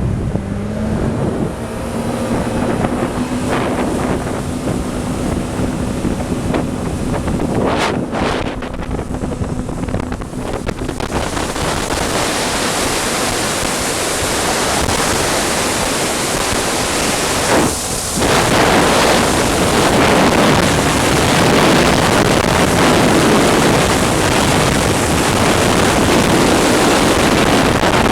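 Loud wind noise battering the microphone on a moving boat, with the boat's engine hum steady underneath for the first ten seconds or so; after that the wind noise grows louder and swamps everything.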